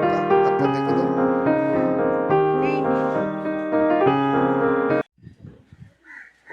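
Background piano music playing, which cuts off suddenly about five seconds in; a few faint short sounds follow.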